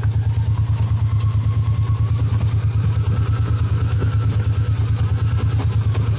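Engine of a side-by-side utility vehicle running steadily with an even, fast low pulse, heard from the seat as it drives along a dirt trail.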